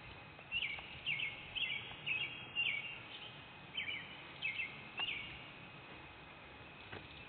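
A songbird calling: a run of short, high chirps that drop in pitch, often in quick pairs, about two a second, stopping after about five seconds.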